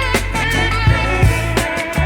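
Background music with a steady beat: drums, bass and a guitar-like melody.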